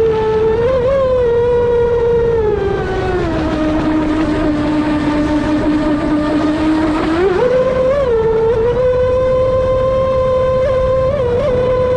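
Brushless electric RC speedboat running fast, its motor and prop giving a high steady whine. The pitch sags about three seconds in, holds lower for about four seconds, then climbs sharply back up, as the throttle is eased and reapplied.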